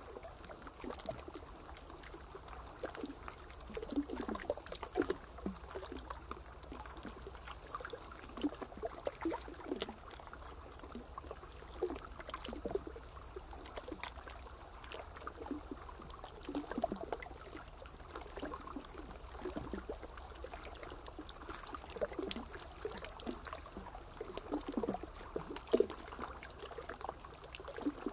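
Water trickling and lapping, with many small irregular splashes.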